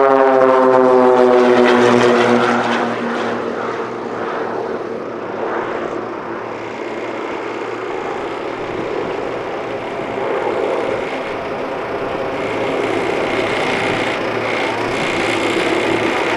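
Piper PA-31-325 Navajo's twin piston engines and propellers at takeoff power as it lifts off and climbs away. The drone drops in pitch over the first few seconds as the aircraft passes, then goes on as a steadier, quieter drone.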